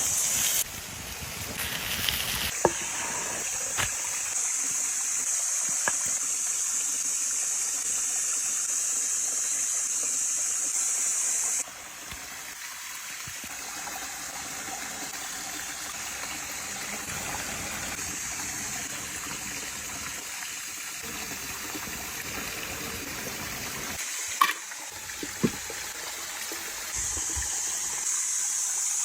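Food sizzling over an open campfire: a steady, high hiss with a few sharp pops and crackles. The sizzle drops off suddenly about twelve seconds in and swells again near the end.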